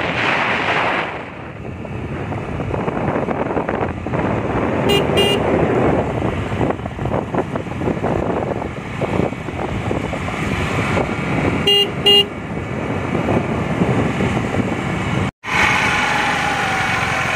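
Wind buffeting the microphone and road noise on a moving scooter, with a vehicle horn giving a short double beep about five seconds in and again about twelve seconds in. The sound drops out for an instant near the end.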